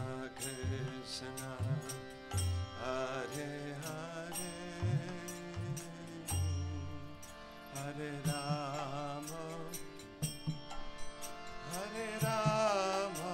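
Kirtan: devotional mantra chanting in sung phrases over a steady harmonium drone, with low drum strokes and hand-cymbal clicks.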